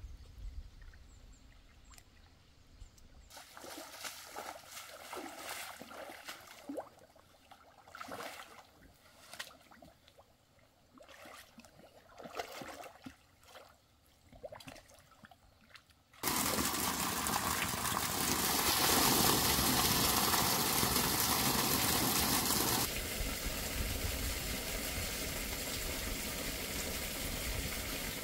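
Shallow water splashing and trickling in irregular bursts as hands work in a muddy stream inlet; a little over halfway through, it gives way suddenly to a steady, louder rushing hiss.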